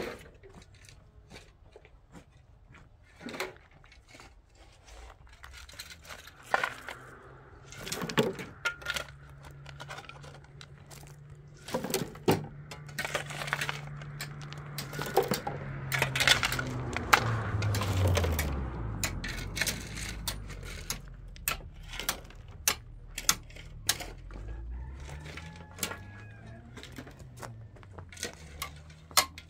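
Hand tools working stony ground: a rake and a shovel scraping and clinking against rocks and gravel, with a run of sharp, regular taps near the end. A low hum comes in during the middle and falls in pitch.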